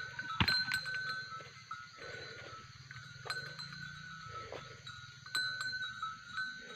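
Bells on a goat herd clanking at irregular intervals as the goats move off, each strike ringing briefly at the same pitch.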